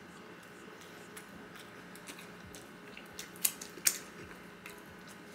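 Close-up chewing of crispy fried chicken: quiet mouth sounds with scattered crisp clicks, and two sharp, louder clicks close together about three and a half seconds in.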